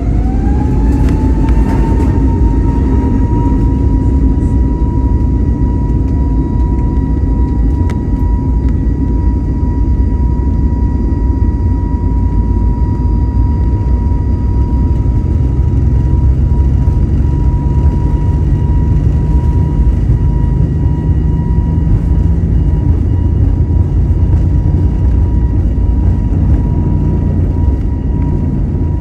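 Airbus A320neo turbofan engine heard from inside the cabin during the takeoff roll: its whine rises over the first two seconds as it spools up to takeoff thrust, then holds at a steady pitch over a loud rumble that grows as the aircraft gathers speed.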